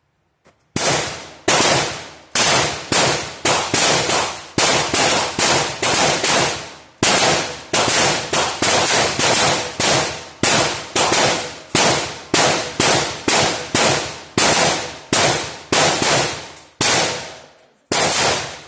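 A rapid string of about thirty gunshots at a shooting range, roughly two a second, each sharp crack ringing out briefly, with a short pause near the end.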